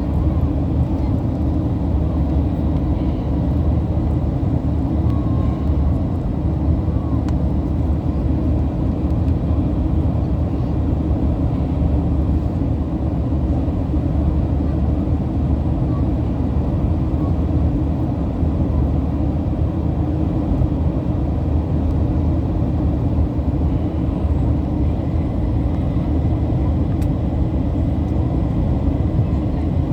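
Boeing 737-800 cabin noise: a steady rumble of engines and airflow heard from inside the passenger cabin, with no sudden changes.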